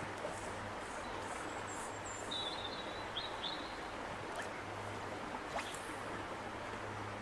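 Steady rush of river water flowing over stones, with a small bird's high chirps between about one and three and a half seconds in.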